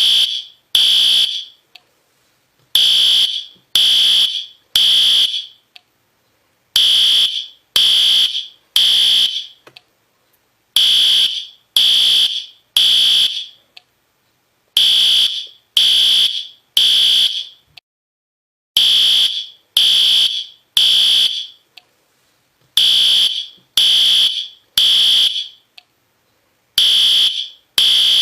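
System Sensor P2R fire alarm horn sounding the temporal-three evacuation code: three loud, high-pitched half-second blasts, then a pause, the group repeating every four seconds.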